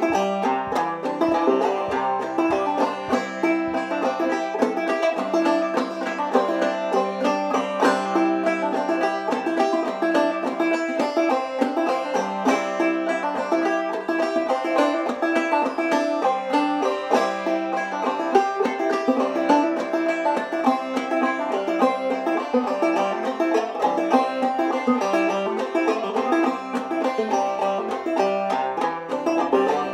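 Open-back five-string banjo played clawhammer style, a solo old-time fiddle tune in Double C tuning with the fifth string lowered to E; a steady stream of quick picked notes over a ringing drone.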